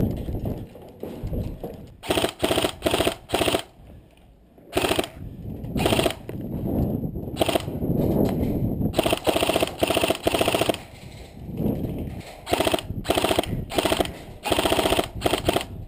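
Airsoft electric rifle firing on full auto in about nine bursts, each a fast, even rattle of the gearbox cycling; the longest burst lasts nearly two seconds, about halfway through.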